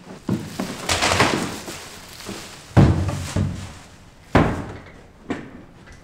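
A series of slams and thuds against a wooden desk, among scattered paper envelopes, with rustling between the hits; the loudest slams come about three seconds in and again about a second and a half later.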